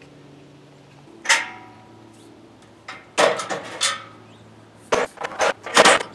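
Steel sawmill-trailer frame parts being handled: a ringing metal clang about a second in, a few knocks around the middle, then a quick run of clattering metal knocks near the end.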